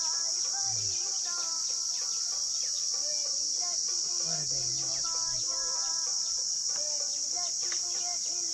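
Steady, high-pitched drone of insects in the trees, the loudest sound throughout, with short pitched notes stepping up and down beneath it.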